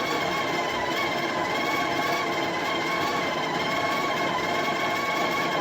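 The Breville Barista Touch Impress's built-in conical burr grinder running, grinding espresso beans at grind setting 17: a steady motor whine with a slight waver in pitch.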